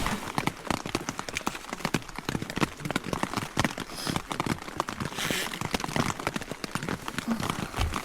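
Rapid, irregular tapping and knocking, many small hits in quick succession.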